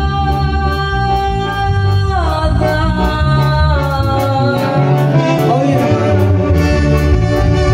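Live band music: a keyboard lead holds long notes that bend down in pitch twice, over bass and drums with a steady cymbal tick.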